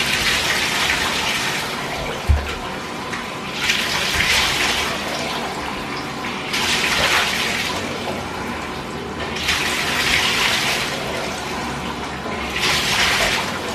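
Warm water running into a bathtub during a dog's bath, a steady hiss that swells and eases every few seconds. A brief low thump about two seconds in.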